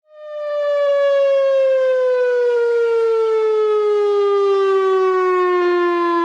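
Whelen OA3 outdoor warning siren sounding a short-wail test signal. It comes in abruptly and then glides slowly and steadily down in pitch, a loud tone rich in overtones.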